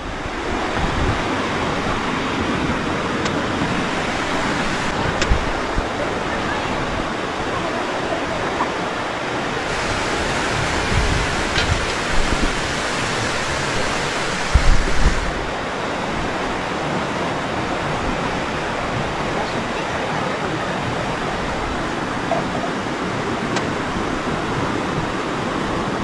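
Steady rushing of a muddy river below a rocky bank, with a few brief low thuds from wind buffeting the microphone.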